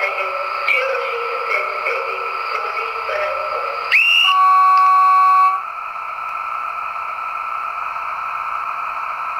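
Märklin model diesel locomotive's sound decoder playing through its small speaker: a steady diesel engine hum. About four seconds in, a quick rising whistle leads into a loud held signal tone lasting about a second and a half, which cuts off sharply, and the engine hum carries on.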